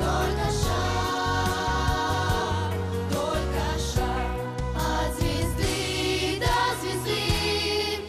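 Song playing with a steady drum beat and bass, and voices singing over it.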